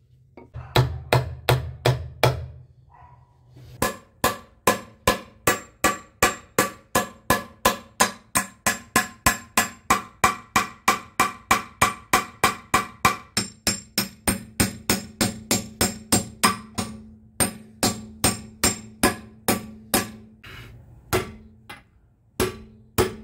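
Hammer blows on a car's rear trailing arm, driving the old rubber bushing out of its ring in a steady rhythm of about two to three blows a second. Each blow rings briefly off the steel arm. There is a short pause near the end, then a few more blows.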